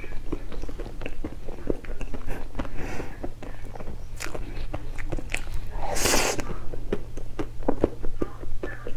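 A person chewing and biting food close to the microphone, with many short wet mouth clicks and a brief louder hiss about six seconds in. A steady low hum runs underneath.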